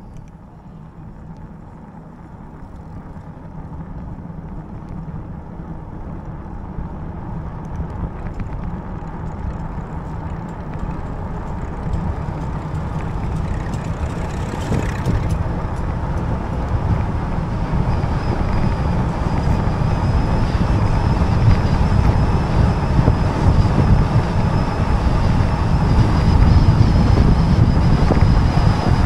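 Wind rushing over a bike-mounted camera microphone, with 4-inch fat tyres rumbling on tarmac, growing steadily louder as the e-bike gathers speed.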